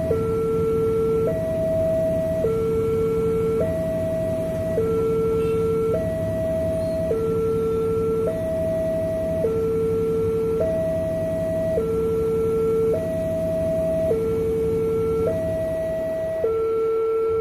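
Railway level-crossing warning alarm: an electronic two-tone signal sounding as the crossing barriers close, alternating between a higher and a lower tone about once a second, warning that a train is approaching.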